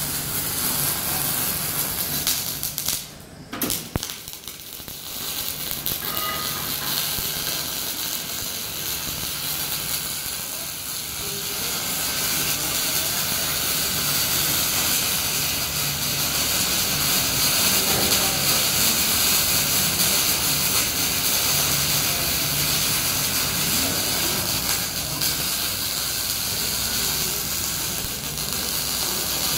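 MIG welding arc from a 250-amp MIG welder, hissing and crackling steadily over a low hum, breaking off briefly about three seconds in before running on.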